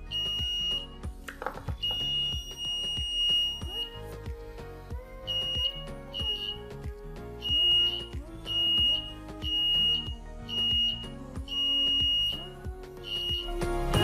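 Small round buzzer on an LM358 infrared proximity alarm giving a high, steady beep that switches on and off as an object comes within the sensor's range: two longer tones, then a run of short beeps about a second apart. Background music plays underneath.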